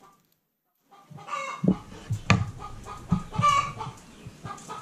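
Chickens clucking, starting about a second in, mixed with several sharp taps of a kitchen knife chopping through peeled bananas onto a wooden cutting board.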